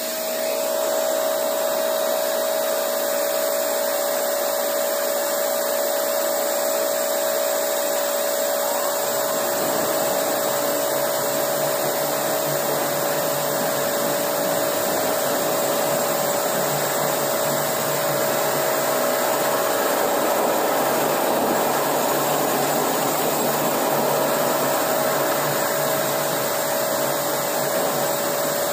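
Walk-behind concrete floor grinder polishing a concrete slab with resin-bond diamond pads. It runs steadily, with a constant whining tone over a broad hiss, and a lower hum joins about nine seconds in.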